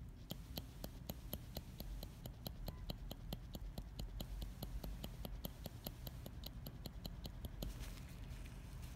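Manual shading tool with a double-row shading needle tapping rapidly into synthetic practice skin, an even run of light clicks at about four to five a second, the poking motion that implants pigment for powder brows. The tapping stops near the end, followed by a soft rustle.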